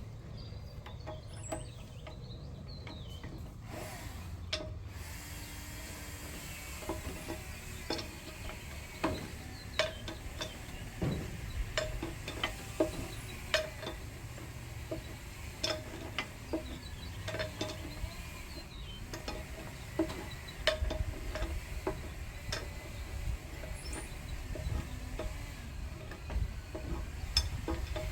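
Hand tools working a bolt and nut on a steel excavator joint: irregular sharp metal clicks and clinks, about one a second from around eight seconds in, over a low steady rumble.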